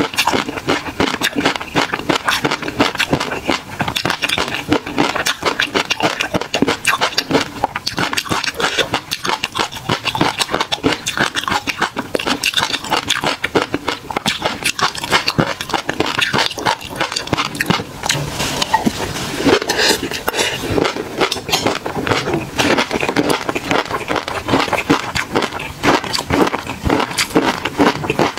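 Close-miked chewing of tobiko (flying fish roe) with peanuts and garlic in sauce: a dense, continuous run of small crackles, pops and crunches.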